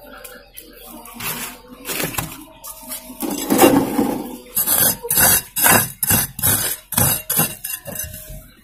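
Handling noises while potting up a plant: a run of short scrapes and knocks, about three a second, for the second half, after softer rustling earlier.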